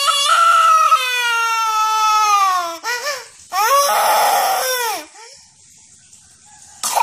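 Toddler girl wailing in a tantrum: one long cry that falls slowly in pitch, a short catch of breath, then a second, rougher wail that breaks off about five seconds in, and a brief sharp cry near the end.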